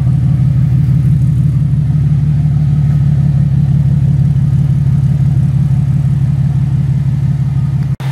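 Nissan 370Z's 3.7-litre V6 idling steadily through a Flashark aftermarket catback exhaust, heard at the tailpipes: an even, low-pitched note that cuts off abruptly near the end.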